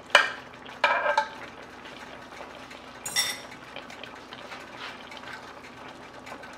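Metal utensil clinking against cookware: a sharp clink at the start, another about a second later, and a brighter, higher ringing clink about three seconds in, over a faint steady simmer.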